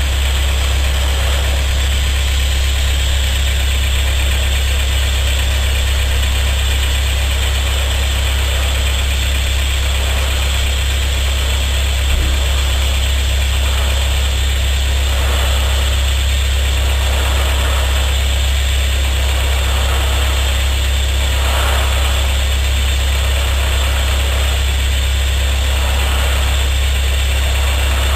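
Rockford metal lathe running steadily with a strong low hum, and the hiss of a torch flame over it, as a splined steel shaft end spinning in the chuck is heated to anneal it soft. A faint regular pulsing comes in about halfway through, roughly every second and a half.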